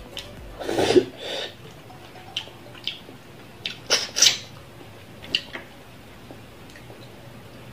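Close-up eating sounds of a person eating fish and rice by hand. A longer wet mouth noise comes about a second in, then scattered lip smacks and mouth clicks, with the loudest two close together near the middle as the food goes into the mouth.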